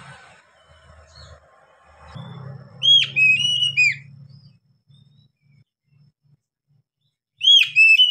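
Oriental magpie-robin singing: two phrases of loud, sharply slurred whistles, the first about three seconds in and lasting about a second, the second starting near the end.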